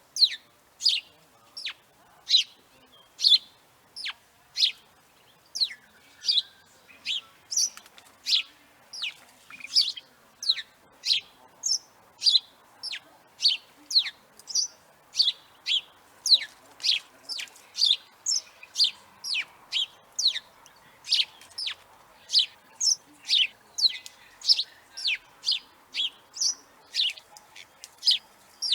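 House sparrow chirping: an unbroken series of short, sharp chirps, about two a second.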